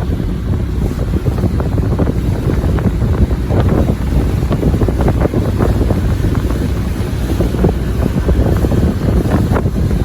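Loud wind buffeting the microphone over the low rumble of a boat under way on the water.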